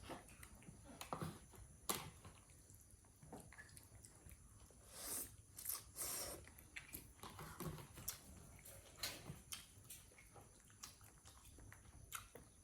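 Faint scattered clicks, taps and small rustles of a monkey eating and handling food, with a couple of short hissing rustles about five to six seconds in.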